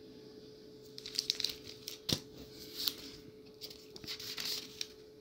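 Scattered clicks and rustles of an AA Arms AP9 9mm pistol being handled, starting about a second in, with one sharp click about two seconds in.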